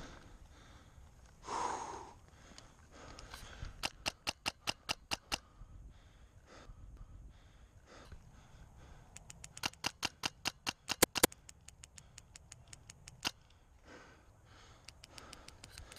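Airsoft rifle firing quick strings of sharp shots: about eight around four seconds in, a faster string of about a dozen near ten seconds, then a single shot near thirteen seconds.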